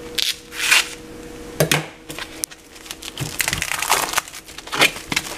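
Packaging being handled: irregular crinkling, crackling and clicking, with a faint steady hum underneath.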